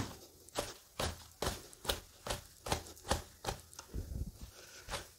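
A cooked Kerala parotta being beaten by hand to open up its flaky layers: a steady run of slaps, about two a second.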